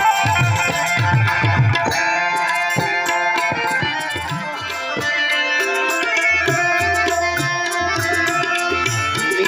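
Instrumental interlude of a Gujarati bhajan: a harmonium melody over tabla, with the bass drum's low strokes bending in pitch.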